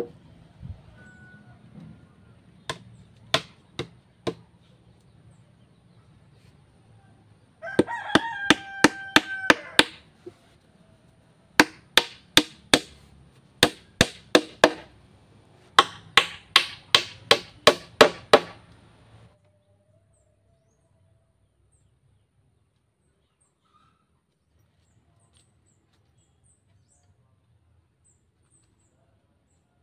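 Machete blade chopping into a wooden pole in quick runs of strikes, about four a second. A rooster crows once, about eight seconds in, over the chopping. The chopping stops a little past halfway, leaving near silence with faint bird chirps.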